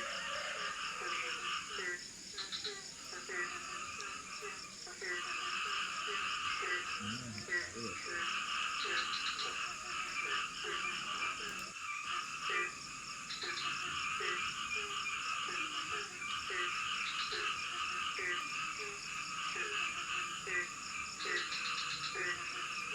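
Rainforest night chorus: frogs calling, with a steady run of short low notes about twice a second over a dense higher chorus of frogs and insects and a constant high insect whine.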